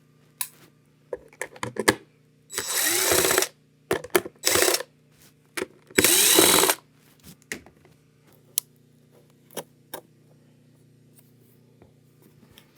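Power drill-driver running in three short bursts of about a second each, its motor pitch swooping as it backs out the screws of a Onewheel's grind plate, with small clicks and knocks of parts and tools between the bursts.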